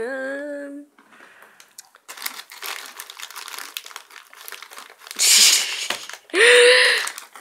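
Plastic snack-chip bag crinkling as it is handled, in scattered crackles with a louder crinkle about five seconds in. A short high-pitched voiced sound follows near the end.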